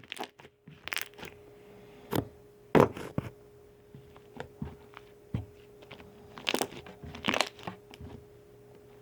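Slime made with liquid starch being squeezed and poked by hand, giving scattered sharp pops and crackles at uneven intervals, loudest a little under three seconds in and again in a cluster near the end, over a faint steady hum.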